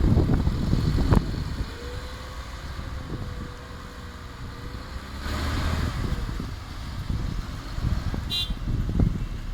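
Heavy dump truck's diesel engine running with a low, uneven rumble. Knocks and clunks come in the first second, with a sharp knock about a second in and a short hiss around the middle.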